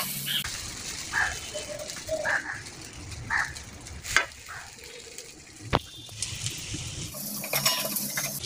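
Egg-coated bread slices sizzling in hot oil in a frying pan, a steady hiss, with two sharp clicks about four and six seconds in.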